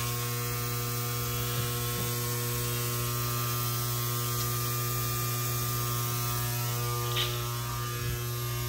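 Steady electrical hum with a strong low tone and a ladder of even, unchanging overtones, with a few faint clicks.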